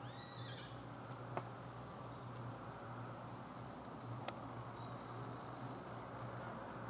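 Quiet woodland ambience over a low steady hum: a short whistled call at the very start, faint high chirping, and two sharp clicks about three seconds apart.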